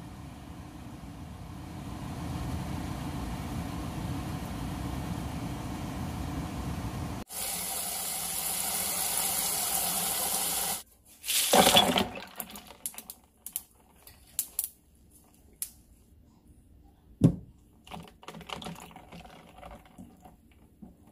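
A pot of bitter boletes at a rolling boil, bubbling steadily for about seven seconds. Then a tap runs hard into a plastic tub in a steel sink, with a loud splash about 11 seconds in. After that come scattered clinks and knocks of ice cubes in the tub, with one loud knock past the halfway point.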